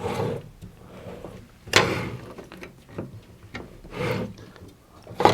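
Handling noises: rubbing and a few clunks as small coax cables inside an opened Anan 200D radio are pushed and tugged, with a sharper clunk about two seconds in.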